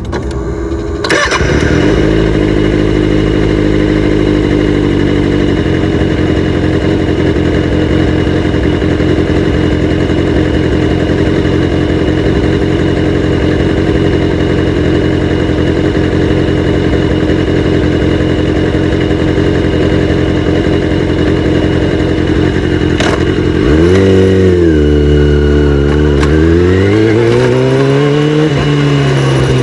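Kawasaki ZX-6R inline-four motorcycle engine with its catalytic converters removed, starting about a second in and then idling steadily, the idle settling slightly lower a few seconds later. Near the end the throttle is blipped twice, the engine note rising, holding and falling each time.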